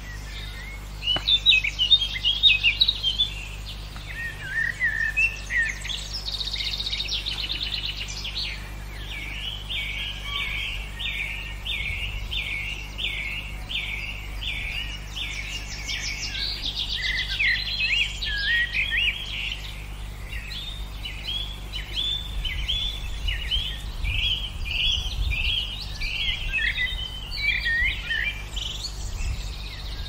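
Several songbirds singing and chirping in overlapping, repeated phrases, loudest in the first few seconds, over a steady low background hum.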